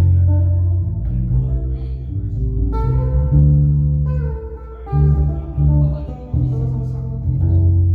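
Guitar music: plucked notes that change every second or so over a strong low bass line.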